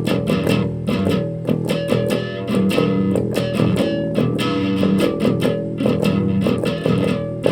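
Rock band playing an instrumental passage with guitar and bass guitar over a steady beat.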